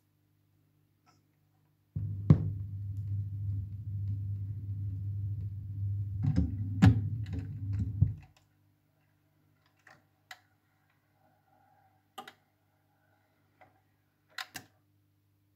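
Stylus and tonearm noise from a record turntable played through the speakers: a low hum and rumble for about six seconds with a few sharp clicks, then it stops and only scattered light clicks follow.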